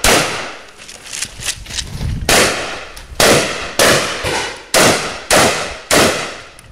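Benelli M2 semi-automatic shotgun firing buckshot: seven loud shots. The first comes at the very start, then after a pause of about two seconds the rest follow in a rapid string, about half a second to a second apart. Fainter sharp clicks fall between some of the shots.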